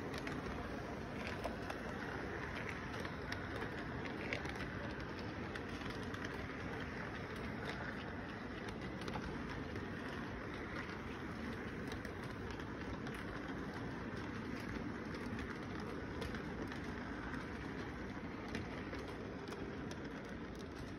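Model train rolling steadily past at close range: a continuous running noise with a light patter of small clicks from its wheels on the track.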